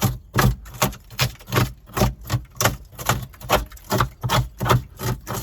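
Large hole saw cutting through the motorhome's wall, giving a regular loud knock or chatter about two to three times a second.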